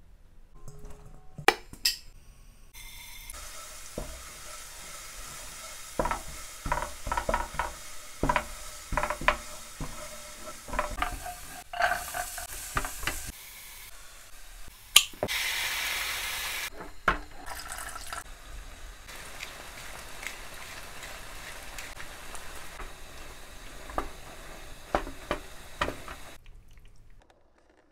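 Frying pan sizzling steadily as chopped onion and then penne in tomato sauce are cooked and stirred, with repeated clinks and scrapes of a spoon and spatula against the pan. A louder hissing stretch lasts about two seconds a little past halfway, and the sound cuts off just before the end.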